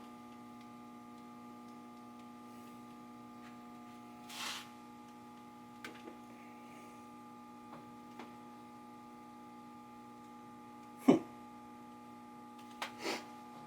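Steady electrical mains hum, a low buzz with its overtones, with a few faint clicks and one sharper knock about eleven seconds in.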